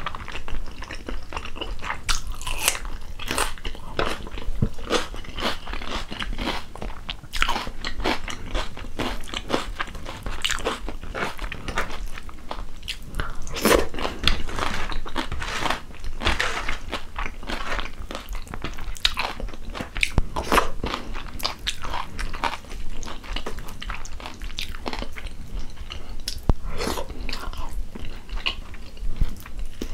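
Close-miked chewing of rice and chicken stew eaten by hand, with a steady run of irregular short, sharp mouth clicks.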